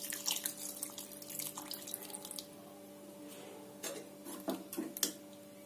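Tamarind water poured from a small steel pan into a pot of thick sambar: a faint splashing trickle for the first couple of seconds, then a few light knocks. A steady low hum runs underneath.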